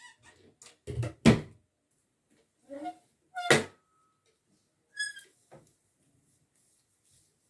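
A few separate knocks and clinks of household objects being handled, the two loudest about a second and a half in and three and a half seconds in; one near five seconds rings briefly.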